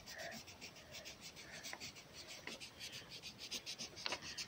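Blue felt-tip pen scribbling on paper, quick back-and-forth colouring strokes at about six a second, faint and steady, with a few light ticks of the pen tip.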